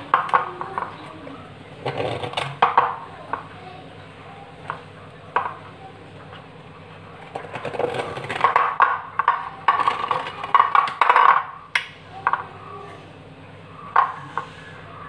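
A metal spoon clinking and scraping against an aluminium idli plate as steamed idlis are prised out of the moulds, in short irregular clicks and knocks.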